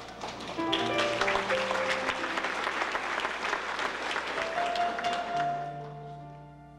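Audience applause over a soft keyboard introduction. The clapping swells about half a second in and fades out near the end, leaving sustained keyboard notes.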